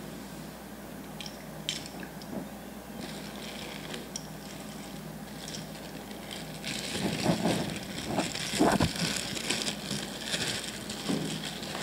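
Plastic bag wrapping crinkling and rustling as it is handled and pulled open. It is loudest in the second half, with a couple of dull knocks.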